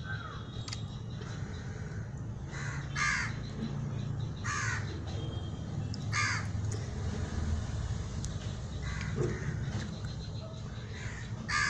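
A bird calling: three short calls about a second and a half apart, then another near the end, over a steady low hum.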